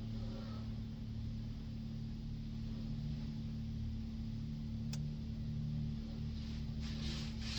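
Steady low mechanical hum of car wash bay equipment, with a single sharp click about five seconds in and a few short hisses of spray near the end.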